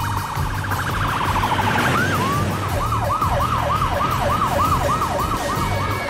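Emergency-vehicle siren running: a fast warble that changes about two seconds in to a slower, repeating rise-and-fall yelp.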